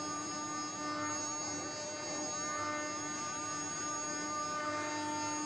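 DCT-1325 CNC router running: its spindle gives a steady whine of several fixed tones while the head travels over a wooden board, routing it.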